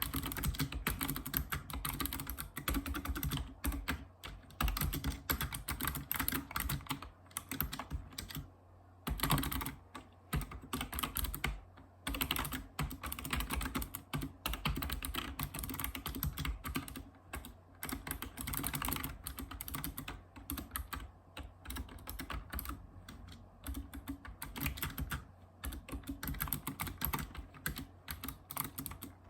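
Typing on a Razer Ornata Chroma mecha-membrane keyboard: a fast, irregular run of key clicks and bottom-outs, broken by a few short pauses.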